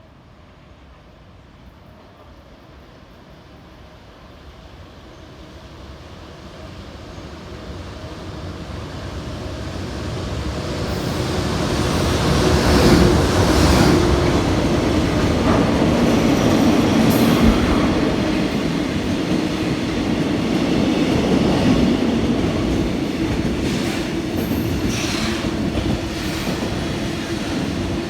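EH200 electric locomotive and its freight train passing through a station without stopping. The rumble builds over about twelve seconds, then holds steady as the wagons go by, with wheel clatter over the rail joints and some high wheel squeal near the end.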